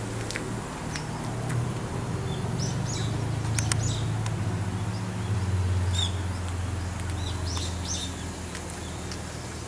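Small birds chirping in short, high calls, one cluster about three seconds in and another around six to eight seconds, over a steady low hum. A couple of sharp clicks come about three and a half seconds in.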